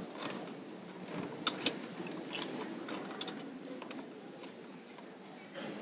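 An audience sitting down and settling in their seats: scattered clicks and knocks of seats and chairs over a steady rustle and shuffle of people.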